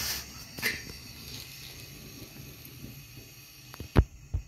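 Large thin flatbread rustling and flapping as it is lifted off an iron griddle by hand, over a steady low hiss. Two dull thuds come near the end, the first the loudest sound.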